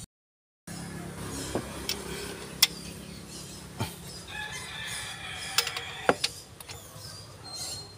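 A rooster crows once, a long call of about two seconds midway through. Sharp metallic clicks and knocks come from a ratchet wrench working in the open cylinder head of a Toyota Fortuner gasoline engine. The sound cuts out briefly at the very start.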